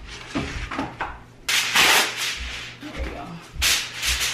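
Aluminium foil crinkling as it is handled and smoothed over a baking sheet: two loud rustling bursts, about a second and a half in and again near the end, with a few soft knocks between.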